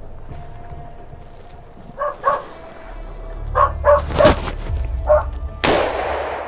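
A hunting dog barking: about five short barks, mostly in pairs. Near the end comes a sudden, sharp, noisy sound that dies away over about a second.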